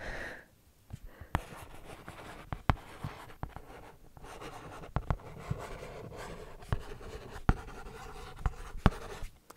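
Pen scratching across a plastic writing tablet held close to the microphone, with sharp clicks as the tip lands and lifts.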